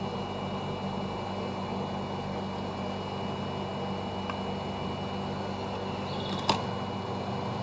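Hot-air rework station blowing steadily, with a low fan hum, as it heats a phone circuit board to desolder the charging connector. A single sharp click comes about six and a half seconds in.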